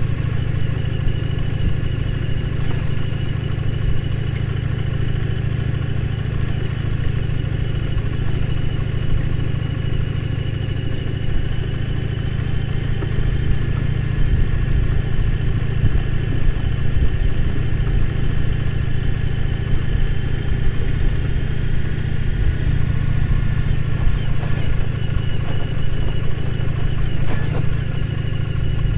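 Indian Challenger's V-twin engine running steadily as the motorcycle cruises along a dirt track, its engine note holding nearly even throughout.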